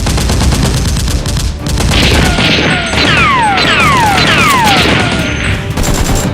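Rapid-fire gunfire sound effects and booms over background music, with four falling whistles about halfway through.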